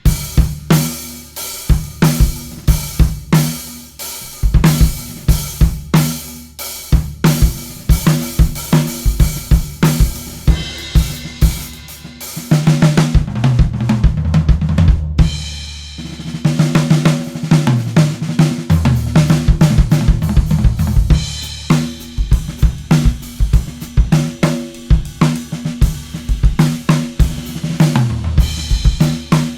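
1970s Pinguim drum kit played in a groove: bass drum, snare, hi-hat and cymbals in a steady beat. About halfway through come denser fills where the toms and floor tom ring out low.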